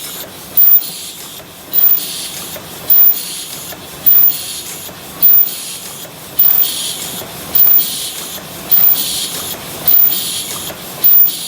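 Paper cup forming machine running at a steady cycle while making 22 oz cups: a sharp loud stroke about every 1.2 seconds, each followed by a short burst of hiss.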